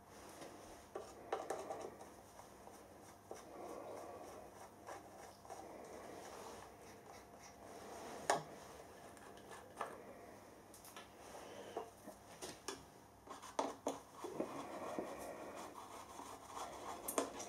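Scattered small clicks and taps of a screwdriver on the metal lid of a milling machine's one-shot lube oil pump reservoir as its screws are undone, with quiet handling noise between them. The sharpest click comes about 8 s in, and a quick run of taps comes a little past the middle.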